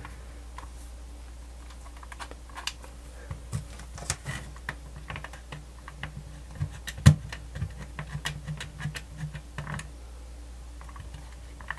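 Small plastic clicks and rubbing from a personal cassette player being handled, as fingers work its switches and side volume wheel. The clicks come irregularly, with one sharper click about seven seconds in, over a low steady hum.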